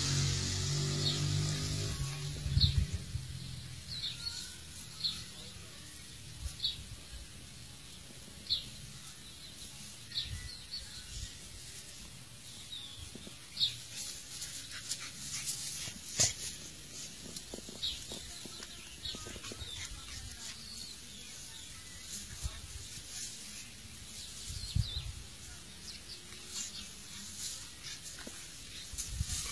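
A dog and a cat play-fighting: a low dog growl in the first couple of seconds, then quieter scuffling and knocks, with short high chirps every second or two.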